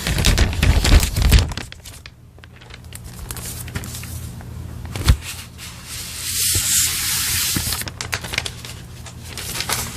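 Packaging being torn and handled: crinkling and tearing, loudest in the first second and a half, with a longer tearing hiss about six to seven and a half seconds in.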